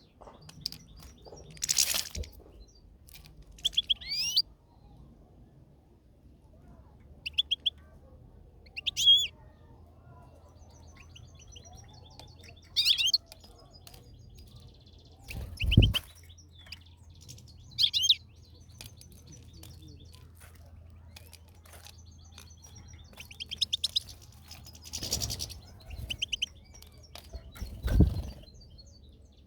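European goldfinch giving short, scattered twittering calls, a quick high phrase every few seconds. Several dull thumps come in between, the loudest about halfway through and near the end.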